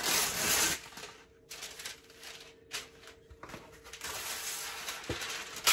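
Parchment paper rustling and crinkling as it is pulled off its roll and handled, in several short noisy bursts, the loudest right at the start and a longer stretch near the end.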